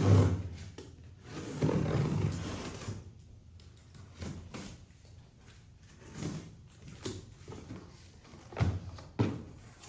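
A cardboard box being opened and handled: a loud thump at the start, a couple of seconds of scraping and rustling, then scattered knocks and bumps, two louder ones near the end.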